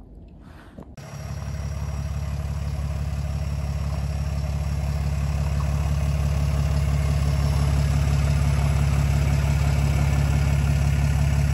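Diesel engine of a PistenBully 100 snow groomer idling steadily, coming in loud about a second in.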